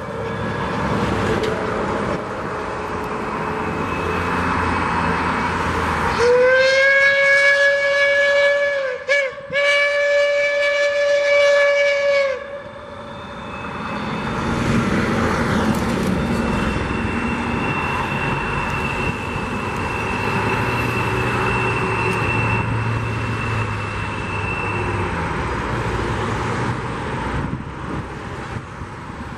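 Reading & Northern 2102, a 4-8-4 steam locomotive, sounding its whistle in two long blasts about six seconds in, split by a brief break, each starting with a slight rise in pitch. Around the whistle is the steady rumble of the freight train rolling past, with a faint thin high tone in the middle stretch.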